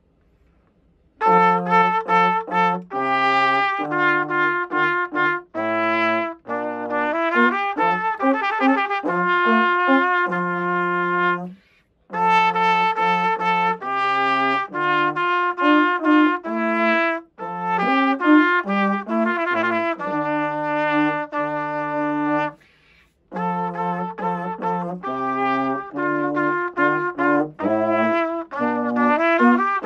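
Trumpet and baritone horn playing a duet, the baritone on the low line under the trumpet, mostly in short detached notes. The playing starts about a second in and breaks off briefly twice.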